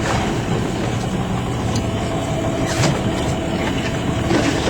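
Fishing boat's engine running steadily, a constant low hum, with a few brief knocks about two to three seconds in.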